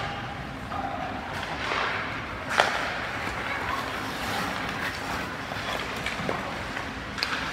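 Indistinct background voices and general noise, with one sharp knock about two and a half seconds in and a couple of fainter clicks near the end.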